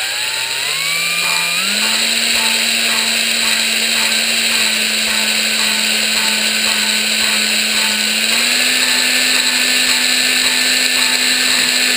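Drill/driver in low gear spinning a valve against its seat in a BMW M50 aluminium cylinder head to lap the two together. A steady motor whine climbs in pitch over the first two seconds and steps up slightly about eight and a half seconds in, with a light ticking about twice a second.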